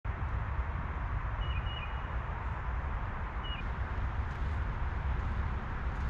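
Outdoor woodland ambience: a steady low rumble of background noise, with a small bird giving short high chirps about a second and a half in and again at about three and a half seconds.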